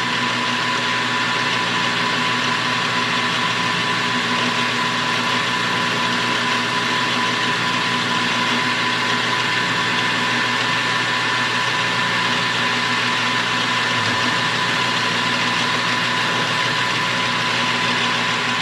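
Metal lathe running at about 1,000 rpm while the cutting tool takes a light facing cut across the end of the workpiece: a steady machine hum with a high, even tone.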